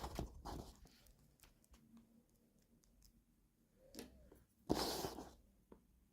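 Toy packaging being handled during an unboxing: a short rustle at the start, scattered small clicks and taps, and a louder rustle about five seconds in.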